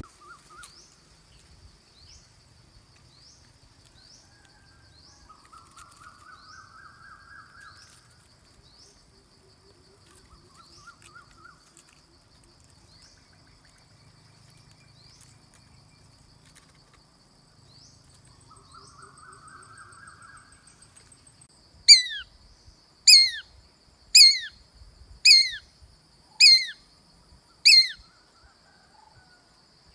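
Shikra screaming: six loud, sharp, down-slurred calls about a second apart in the last third. Before them only a steady high insect whine and a few soft buzzy trills are heard.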